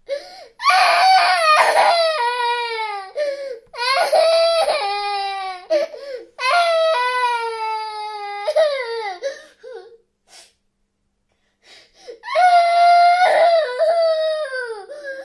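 A baby crying in long, loud wails, each cry sliding down in pitch, four bouts broken by short catches of breath, with a pause of about two seconds just past the middle.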